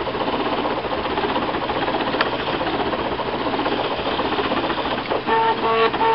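A Trinitylabs Aluminatus 3D printer's stepper motors chattering busily as the hotend makes rapid short moves while printing PLA. About five seconds in the sound changes to short pitched whines that stop and start a few times a second.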